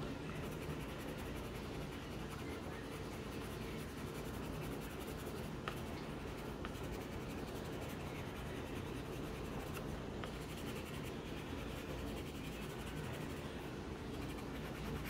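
Coloured pencil scratching on paper as the church's windows are shaded in with black, a soft steady scribbling.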